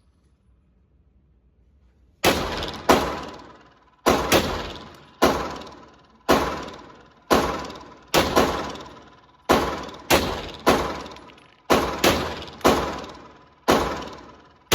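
Glock 17L 9mm pistol firing a string of about sixteen shots, irregularly spaced half a second to a second apart, each with a short echoing tail. The shooting starts about two seconds in, after a quiet stretch.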